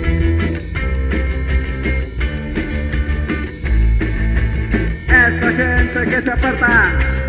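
Punk rock band playing an instrumental passage with drums, bass and electric guitars. About five seconds in, a brighter guitar line with bending notes comes in.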